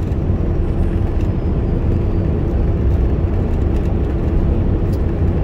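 Steady cab noise of a semi truck cruising at highway speed: the Paccar MX-13 diesel engine drones low and even under tyre and road rumble, with a constant hum.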